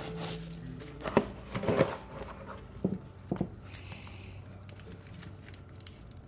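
Objects from a package being handled and set down: a few knocks and clatters between about one and three and a half seconds in, over a low steady hum.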